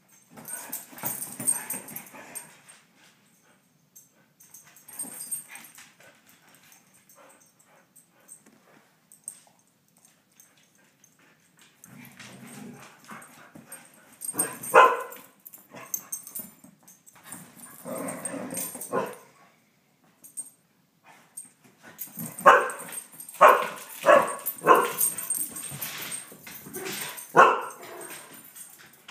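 Dogs playing, with barking and yapping in bursts throughout and a quick run of loud barks about once a second in the last seven seconds.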